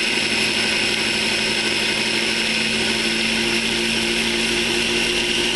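Hamilton Beach Bebe baby food maker's blender motor running steadily, pureeing steamed sweet potato: a constant hum with a high whine.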